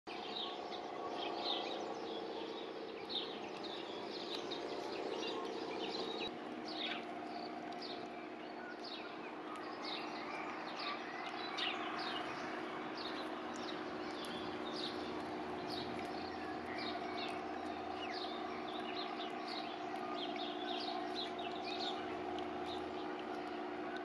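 Wild house sparrows chirping busily, a rapid stream of short chirps, over a steady low hum.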